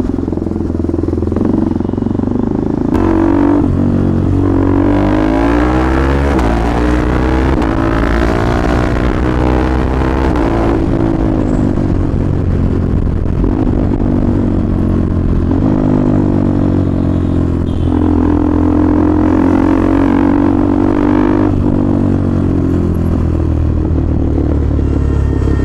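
KTM Duke 390 single-cylinder engine and exhaust heard from the rider's seat, revving up through the gears as the bike accelerates. The pitch climbs and drops back at each gear change, then eases as the bike slows. Wind rushes on the microphone at speed near the middle.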